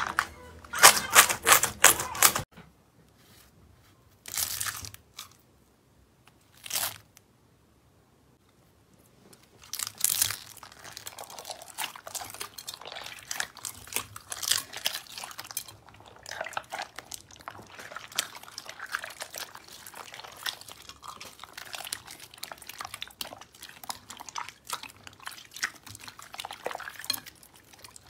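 Slime worked by hand: a burst of loud sticky popping and clicking in the first couple of seconds as the slime is stretched, two short squelches a few seconds later, then from about ten seconds in continuous crackling, squishing sounds as hands knead clear blue slime packed with foam beads.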